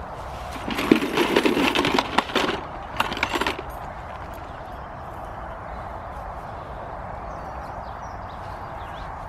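Rustling, crackling handling noise for about two seconds, a short burst again about three seconds in, then only steady background noise.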